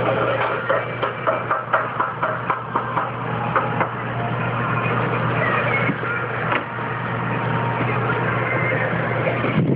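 Rapid chopping knocks on a hard kitchen surface, about three a second for the first four seconds, with one more knock later. A steady hum of kitchen equipment runs underneath.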